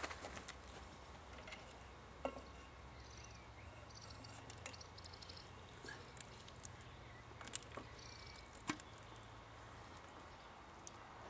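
A few sharp, isolated clicks from oiling a Bamford 3 hp stationary engine by hand with a pump oil can and easing its flywheel round, over a quiet background with faint bird chirps.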